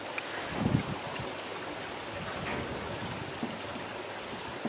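Heavy rain pouring down onto tarmac and paving, a steady hiss. A brief low thump comes a little under a second in.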